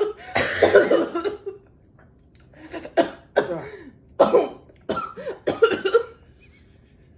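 Harsh coughing in a series of short fits, some with throat clearing, from the sting of hot sauce just eaten.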